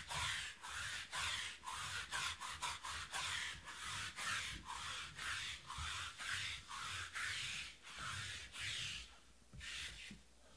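Sticky lint roller rolled back and forth across a table surface: a run of short, crackly rubbing strokes, about two a second, that stops near the end.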